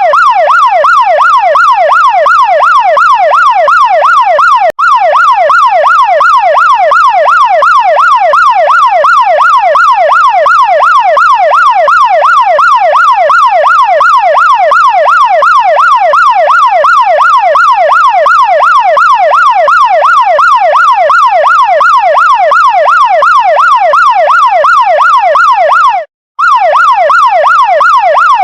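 Chinese fire truck electronic siren sounding a fast yelp, its pitch sweeping up and down about three to four times a second. It cuts out for a moment near the end and picks straight up again.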